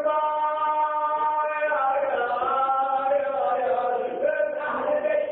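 A male reciter chanting a Shia mourning elegy (maddahi), singing long held notes that bend slowly up and down in pitch, in a recording with the top end cut off.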